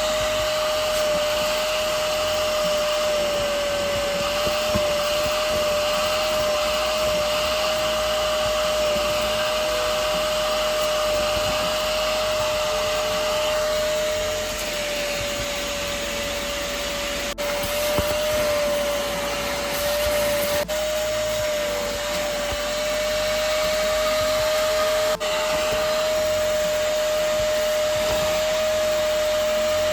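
Hoover CleanSlate Pet Plus portable spot cleaner running with a steady suction whine, its pitch wavering slightly now and then.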